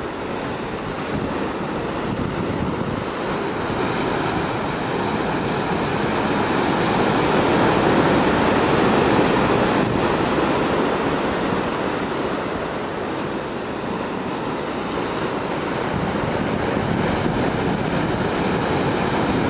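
Ocean surf breaking over offshore rocks, a continuous rush of water that swells about halfway through as a large wave bursts against the rocks, then eases and builds again near the end. Wind buffets the microphone underneath.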